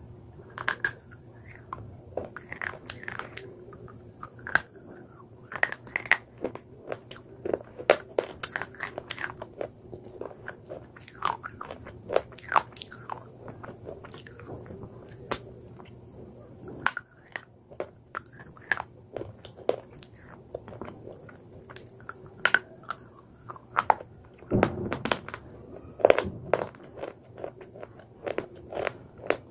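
Slate bars being bitten and chewed: dry, brittle crunches and crackles at an irregular pace, several of them sharp and loud, with denser chewing near the end.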